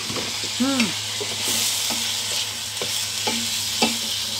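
Bitter melon, tempeh and tofu sizzling in a hot enamel wok as they are stir-fried, with the utensil knocking against the pan now and then. The sizzle grows louder about a second and a half in.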